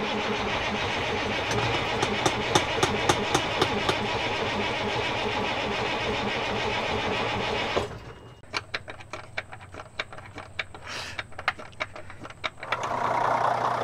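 Starter cranking a worn Peterbilt semi-truck diesel engine for about eight seconds without it catching, then stopping, with a few seconds of sharp clicks. Near the end the engine fires and settles into running.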